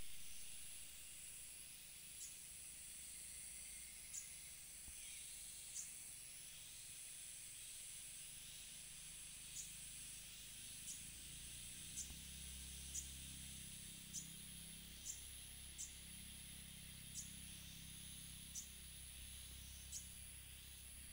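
Faint steady high-pitched insect drone, with short high chirps repeating every second or two.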